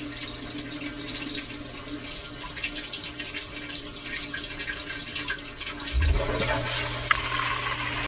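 Dishwasher heard from inside its tub: water trickling in over a low steady hum, then about six seconds in a thump as the wash pump starts and water sprays loudly against the dishes and racks.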